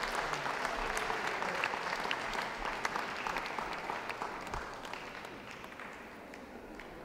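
Audience applauding, the clapping fading away over the last few seconds.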